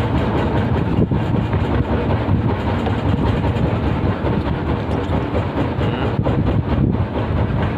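A boat engine running steadily, a loud, even rumble.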